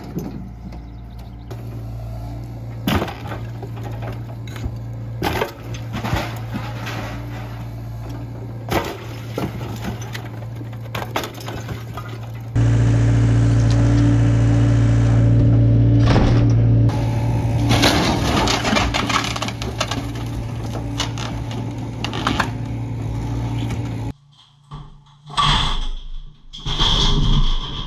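John Deere compact excavator's diesel engine running steadily under sharp cracks and crashes of wood, block and sheet metal as a building is torn apart. The engine comes in louder and closer about halfway through, and after a short drop-out there is loud crashing near the end.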